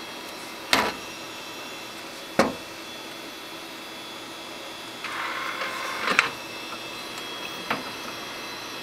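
A computer giving off a steady high-pitched whine over a hiss, which the owner rules out as coming from the hard drive. Several sharp knocks cut in, near one second, two and a half seconds, six seconds and near the end, with a brief rustle just before the third.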